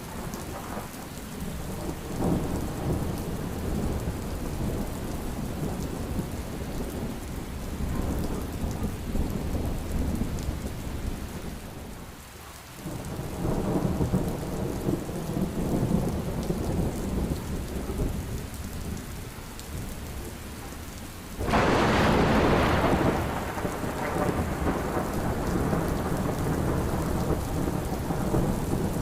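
Heavy rain falling steadily under rolling thunder that swells and fades in low rumbles. About two-thirds of the way in, a sudden loud, sharp thunderclap breaks and rumbles away over a couple of seconds.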